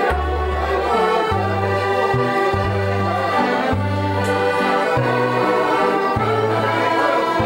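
Accordion playing a dance tune, its held bass notes changing about once a second under the melody.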